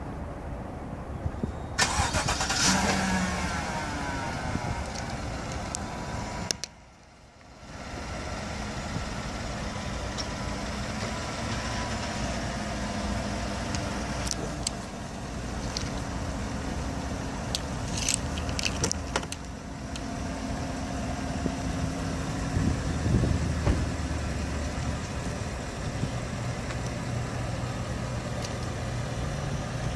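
Chevrolet Silverado pickup's engine remote-started from the key fob, catching about two seconds in with a brief flare that settles, then idling steadily.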